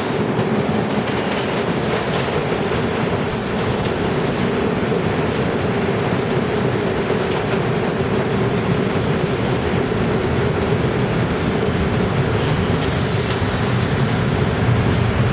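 New York City subway train running through a tunnel and into a station, heard from inside the car: a steady rumble of wheels on rail with a steady hum. There is a brief high hiss near the end.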